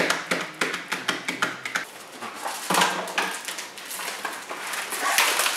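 Packaging being handled and opened by hand: a quick run of small clicks and clatters, then longer rustling about three seconds in and again near the end.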